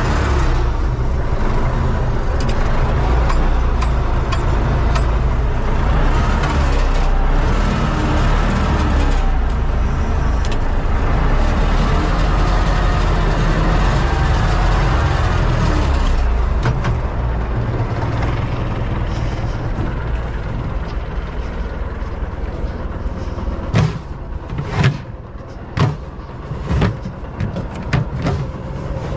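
Universal U650 tractor's four-cylinder diesel engine running steadily under load, heard from inside the cab. About two-thirds through the engine sound falls off, and near the end several sharp knocks stand out over it.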